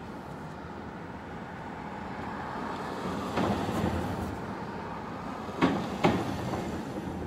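City street traffic noise that swells for a moment as vehicles pass, with two sharp knocks about half a second apart near the end.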